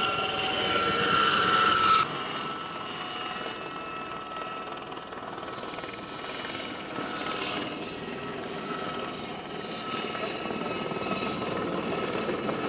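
SA342 Gazelle helicopter flying low and hovering: steady turbine and rotor noise with a steady high whine, typical of the Gazelle's shrouded Fenestron tail rotor. The sound is louder for the first two seconds, then drops suddenly and stays steady.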